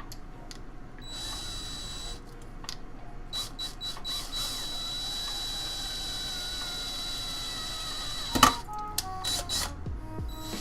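Power drill running against the metal of a PC case: a short burst about a second in, then a longer run of about six seconds with a steady high whine. The run ends in a sharp, loud knock.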